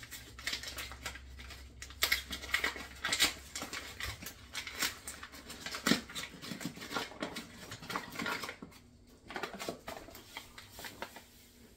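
Paper sugar bag crinkling and rustling while granulated sugar is poured from it into a glass measuring cup, with many small crisp clicks and rattles throughout; it quietens near the end.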